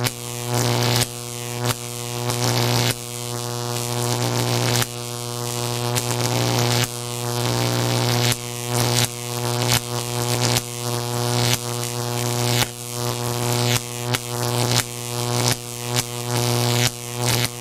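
Electric shock sound effect: a harsh electrical buzz with crackle, broken into a string of zaps that start suddenly, some short and some lasting one or two seconds.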